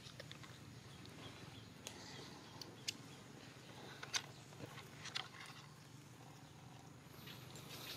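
Faint scattered clicks and rustles of dry leaves and twigs on the forest floor as the macaques move, over a low steady background hum.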